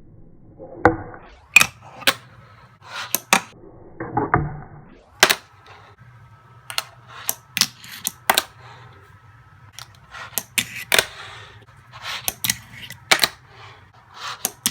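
Fingerboard tricks on a hard surface: a string of sharp wooden clicks and clacks as the small deck is popped and lands, often in quick pairs, over a low steady hum.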